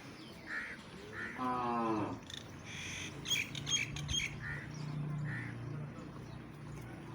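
Crows cawing repeatedly, with small birds chirping briefly about three seconds in. A single short animal call that falls in pitch comes about one and a half seconds in.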